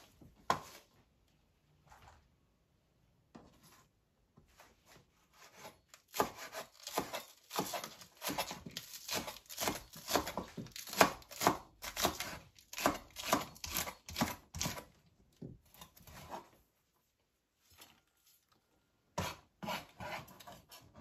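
A kitchen knife slicing bell peppers into rings on a cutting board, each cut ending in a short knock on the board. A few separate cuts at first, then a quick, even run of about two to three cuts a second from about six seconds in to about sixteen, and a few more near the end.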